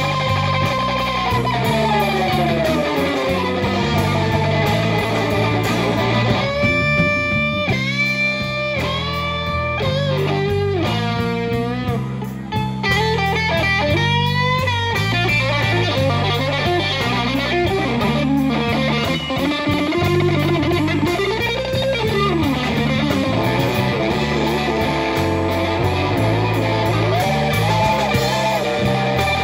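Live blues trio playing: a Telecaster electric guitar takes the lead with a long downward slide in the first few seconds, then a run of quick bent notes, over Fender electric bass and a drum kit.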